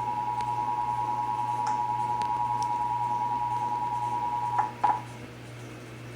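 Emergency Alert System attention signal: a steady two-tone alarm (853 and 960 Hz together) sounding for the Required Monthly Test. It cuts off about four and a half seconds in with two sharp clicks, leaving a low hum.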